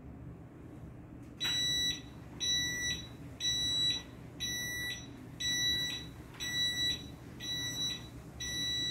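Power wheelchair's warning beeper sounding a steady run of high electronic beeps, about one a second, each about half a second long, starting about a second and a half in as the chair reverses and turns.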